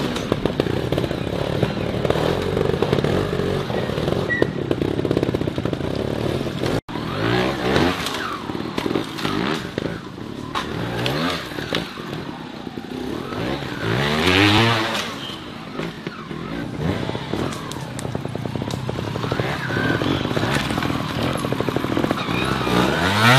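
Trials motorcycle engines running at low revs, blipped in short bursts of rising and falling revs. The loudest burst comes a little past the middle, and the sound breaks off sharply for an instant about a third of the way in.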